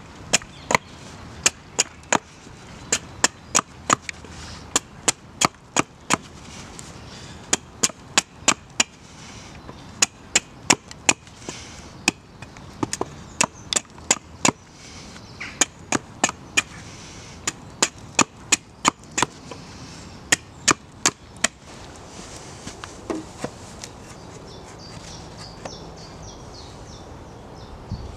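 Small axe chopping a point onto the end of a thin green wooden stake held against a log: a long series of sharp chopping strikes, about two a second, in runs with brief pauses.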